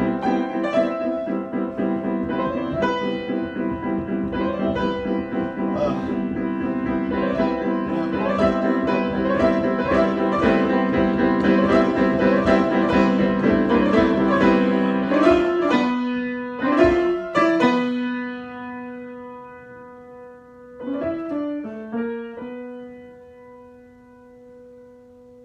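Solo piano improvisation: busy repeated figures over a sustained low chord, then thinning after about fifteen seconds to a few separate notes left ringing and slowly dying away.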